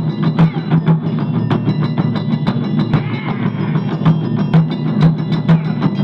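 Japanese taiko ensemble playing: chu-daiko barrel drums and a large odaiko struck with bachi sticks in a fast, dense rhythm of many strikes a second.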